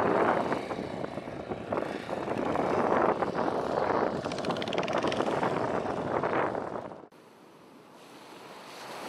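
Rushing wind and sea noise buffeting the microphone at the waterside, loud and uneven. It cuts off abruptly about seven seconds in to a much quieter soft hiss that swells gently near the end.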